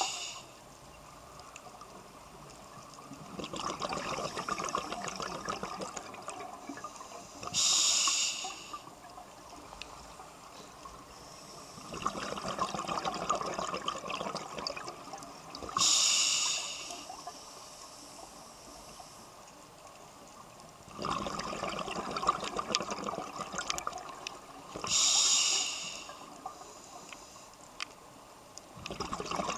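A scuba diver's regulator breathing in a slow cycle of about eight seconds. Each cycle has a few seconds of bubbling exhalation, then a short loud hiss of inhalation, then a quiet pause. Three inhalations are heard.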